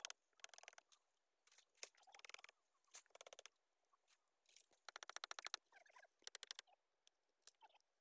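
Hand saw cutting through a tree branch: faint, rasping strokes, each a quick run of the teeth catching the wood, coming in short irregular bursts.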